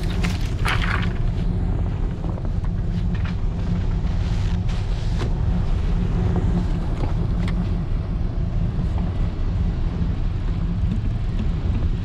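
A pickup truck engine idling steadily, with a brief crackle of dry branches being dragged over the snow about a second in.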